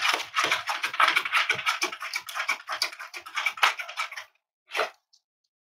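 Dog claws scratching and clicking rapidly on a hard surface. The run stops about four seconds in, and one last scratch follows just before the five-second mark.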